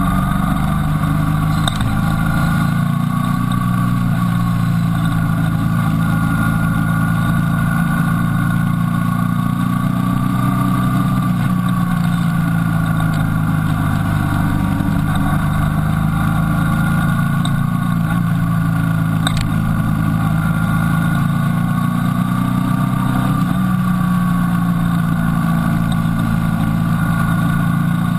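Motorcycle engine running steadily under way, heard from a camera mounted on the bike. Its pitch rises and falls gently with the throttle through the bends.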